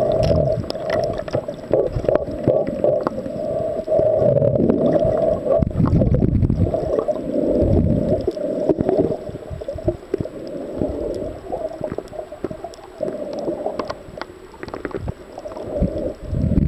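Muffled underwater water noise picked up by a camera held under the surface while snorkeling: a low, sloshing rumble with scattered sharp clicks, dropping in level about halfway through.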